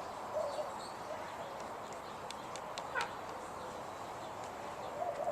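Faint bird calls, a few short wavering notes near the start and end, over a steady background hiss.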